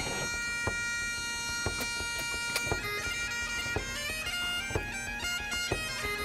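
Background music: a steady held drone, with a stepping melody entering about three seconds in, over a sharp beat about once a second.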